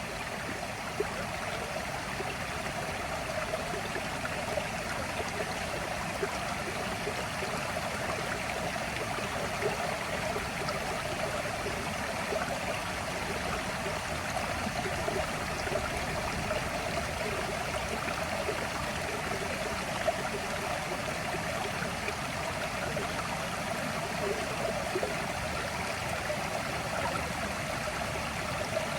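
A stream rushing steadily, with a couple of brief clicks.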